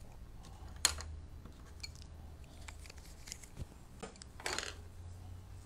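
Faint scrapes and light taps of a charcoal pencil and paper on a drawing table, over a low steady hum. The sharpest tap comes about a second in, and a longer scrape comes a little after four seconds.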